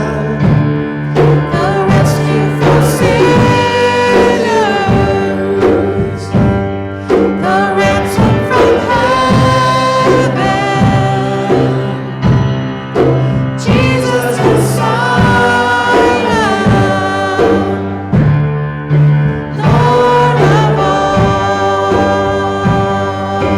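Church worship music: voices singing a song with instrumental accompaniment, over steady held low notes.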